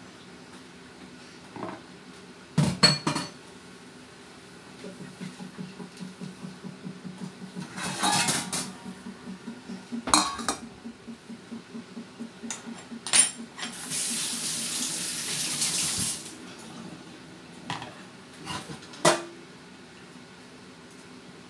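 Dishes and utensils clattering at a kitchen sink, with several sharp knocks and a run of quick soft taps. A tap runs for about two seconds a little past the middle.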